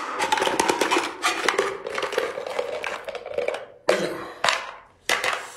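Abalone in their shells and sauce being tipped out of a glass jar onto a tray: a run of dense clattering and small clicks, then a few separate knocks near the end.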